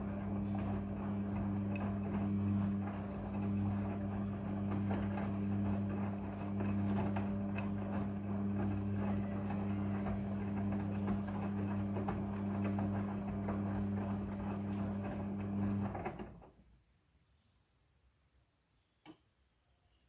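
Midea front-loading washing machine in its wash cycle: the drum motor hums at a steady pitch while wet clothes tumble and rustle in the drum. About three-quarters of the way through it stops abruptly as the drum pauses, leaving near silence broken by a single click near the end.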